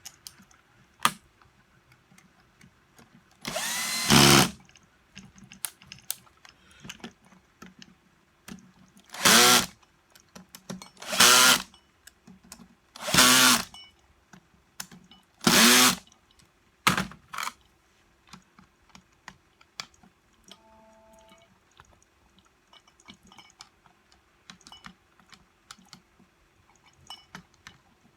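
Electric screwdriver running in five short bursts of about a second each, driving in the housing screws, with light clicks of handling between them.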